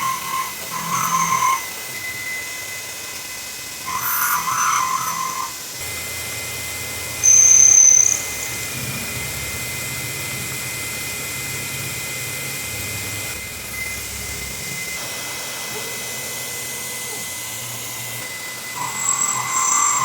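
CNC milling machine cutting a pocket into a block with an end mill: a steady spindle whine, with stretches of louder cutting noise as the tool bites into the stock. A brief, loud high squeal comes about seven seconds in.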